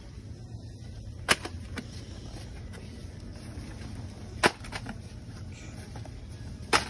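Small cardboard boxes dropped one after another into a plastic shopping basket, making three sharp clacks and a few lighter taps, over a steady low hum of shop ambience.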